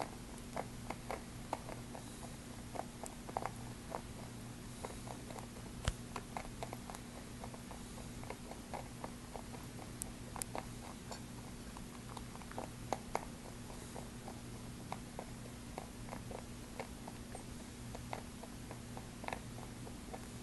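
Pet rabbit chewing and crunching oat treats from a plate: a quick, irregular run of small crisp clicks and crunches, over a steady low hum.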